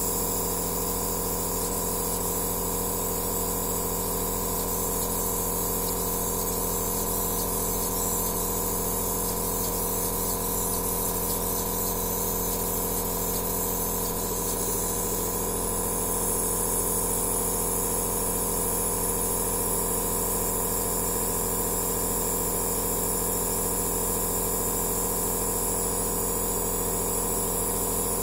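Aerosol therapy machine, a compressor nebulizer, running: a steady electric hum with an airy hiss over it.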